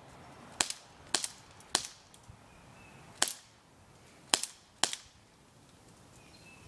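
Full-metal Beretta M84 Cheetah BB pistol firing six sharp shots at an uneven pace: three about half a second apart, a single shot, then two more.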